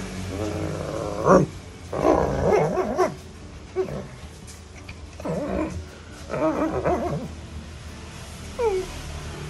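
Golden retriever puppy vocalizing in a string of short pitched calls during play, about five in all, the last a brief falling note near the end.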